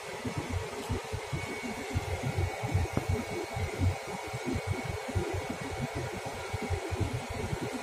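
Steady rushing of cooling air blowing, with an uneven low buffeting on the microphone.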